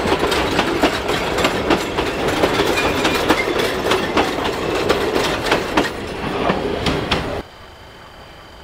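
Train wheels rolling over the rails with a rapid, irregular clatter of clicks and knocks from the rail joints. About seven seconds in the noise stops abruptly, leaving a quiet background with a faint steady high-pitched whine.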